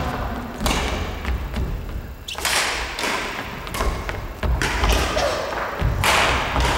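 Badminton rally: a few sharp racket strikes on the shuttlecock, each echoing in a large hall, over thudding footsteps on a wooden sports floor.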